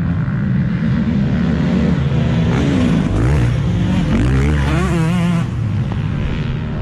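Motorcycle engine running, its pitch wavering up and down with the revs.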